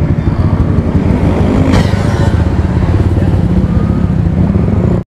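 Motor scooter engines running steadily at low speed as a small group rides through city traffic, with a short rush of hiss about two seconds in. The sound cuts off suddenly at the end.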